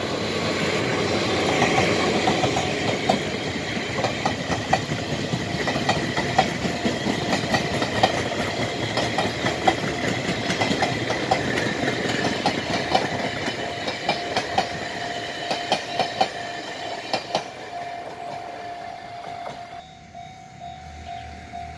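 Chu-Kuang express train, hauled by an electric locomotive, passing at speed: a steady rumble with a fast, irregular clatter of wheels over rail joints that fades out after about 19 seconds. The level-crossing warning bell rings under the passing train and is left ringing in an even pulse at the end.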